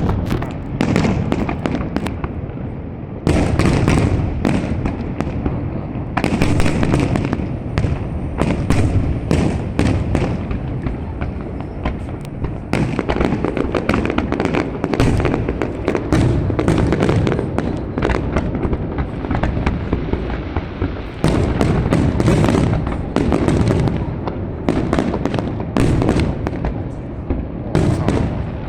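Fireworks display going off in a dense, continuous barrage of bangs and crackling, with a deep rumble underneath.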